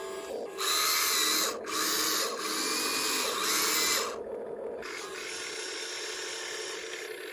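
Remote-control toy excavator's small electric motors whirring in three bursts with a high whine, followed by a fainter steady hum.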